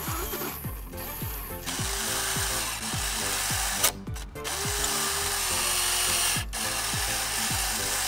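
Small electric gear motors in a Bruder CAT bulldozer converted to remote control whir with a steady whine and a gritty grinding for a few seconds. The sound starts about a second and a half in, breaks off briefly with a sharp click near the middle, and stops shortly before the end. Background electronic music with a steady, thudding beat plays throughout.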